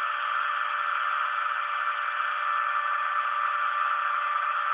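Homemade CNC machine milling black plastic: a steady, constant-pitched whirring whine of the cutting spindle and motors.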